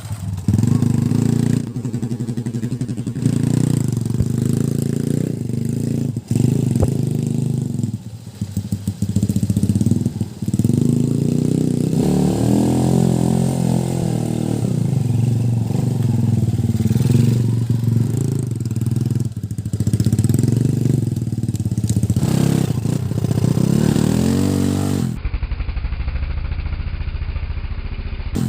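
Two-wheel-drive trail motorcycle's engine running under load off-road, its pitch rising and falling with the throttle, with brief dips where the throttle is shut. Near the end the sound turns muffled.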